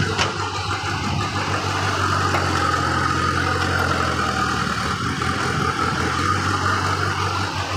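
JCB backhoe loader's diesel engine running steadily under load as its front bucket digs into a pile of sand and soil, with a higher whine that swells through the middle and a single sharp click near the start.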